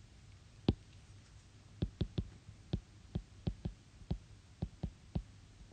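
Apple Pencil tip tapping on an iPad's glass screen while handwriting: about a dozen short, sharp clicks at irregular spacing.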